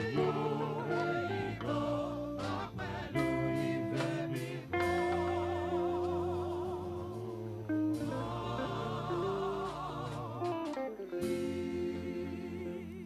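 Gospel music: a singer holds long notes with a wavering vibrato over guitar and steady bass accompaniment.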